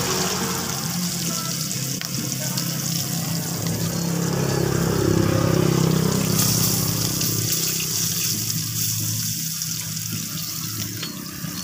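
Fish steaks frying in oil in a wok on a portable gas burner: a steady hissing sizzle. Under it a low steady hum swells about halfway through and eases off again.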